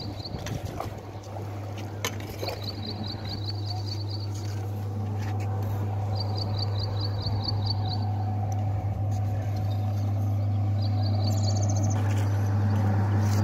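Steady low hum of a running electric motor, growing slightly louder toward the end. High, quick chirping trills of about ten notes each repeat every couple of seconds.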